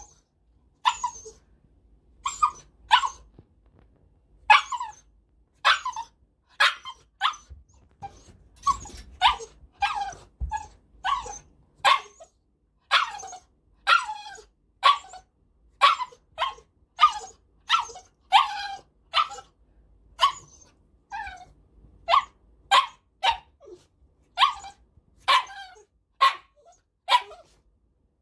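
Cavalier King Charles Spaniel barking over and over: short, sharp barks, often in pairs, about one or two a second.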